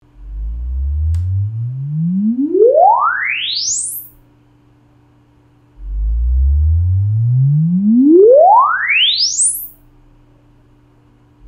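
Sennheiser AMBEO soundbar playing its room-calibration test tones. These are rising sine sweeps that glide smoothly from a deep bass rumble up to a piercing high whistle, each lasting about four seconds. Two full sweeps play with a short pause between them, and a third begins just at the end.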